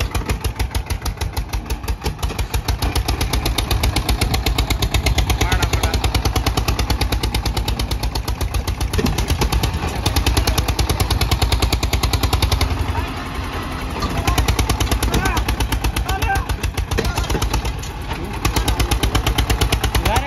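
Eicher 241 tractor's single-cylinder diesel engine running hard under heavy load with a fast, even exhaust beat, the tractor stuck in sand with its rear wheels spinning under an overloaded trailer. The engine note drops briefly twice in the second half.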